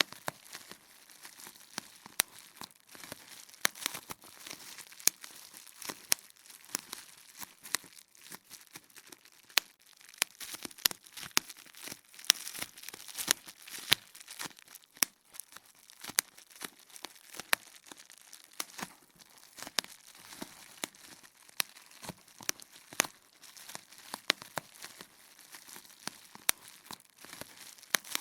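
Plastic bubble wrap being popped: sharp pops at an uneven pace, one to three a second, over a constant crinkling of the plastic sheet.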